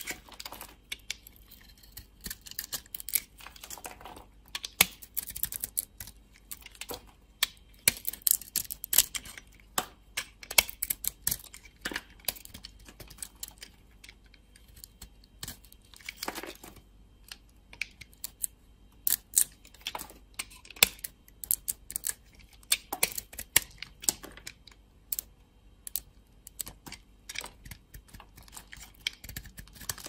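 Dry bar soap being cut with a snap-off utility knife blade: an irregular run of crisp, crunchy cracks and clicks as slivers and chunks of soap break off.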